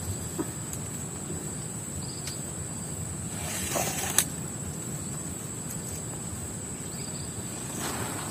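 Steady high-pitched insect drone over low outdoor noise, with a brief rustle and a sharp click about four seconds in while a tarp is being tied up.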